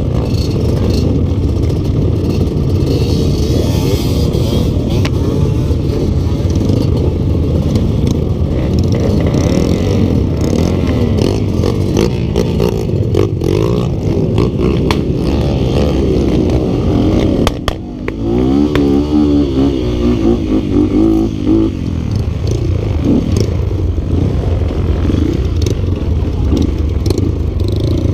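Yamaha Vixion trail motorcycle's single-cylinder four-stroke engine running under riding load, its revs rising and falling. About two-thirds of the way through the sound drops briefly, then the revs sweep up and down again. The owner says the engine is leaking compression and short of power.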